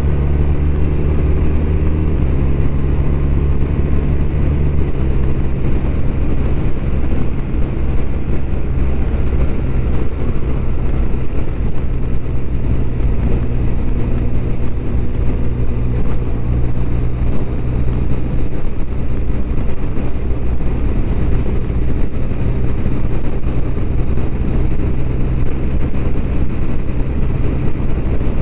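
BMW R1200RT motorcycle's flat-twin engine running while riding at a steady pace, under a steady rush of road noise. The engine note steps to a new pitch twice in the first five seconds or so.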